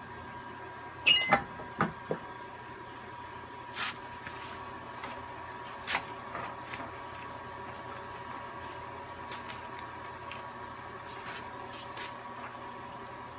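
A heat press is opened: a loud metallic clank with a brief ring about a second in as the handle releases the heated upper plate, followed by two more knocks. Scattered light taps and rustles follow as the shirt and vinyl transfer sheet are handled, over a faint steady hum.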